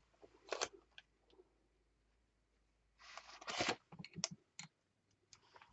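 Faint handling of art materials on paper: a short swish, then a longer rubbing swish, followed by a few light clicks and taps.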